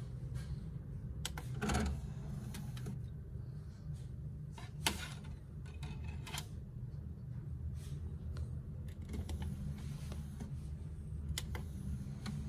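Scattered clicks and taps of a CD being laid on the open disc tray of a Denon CD player and the tray mechanism moving, the sharpest click about five seconds in, over a steady low hum.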